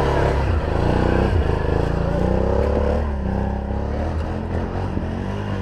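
ATV engine running under changing throttle, its pitch rising and falling as it is worked.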